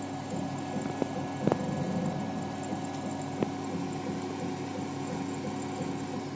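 CO2 laser cutting and engraving machine running: steady hum of its motors and fans with a light rhythmic ticking of about four a second, and a few sharp clicks.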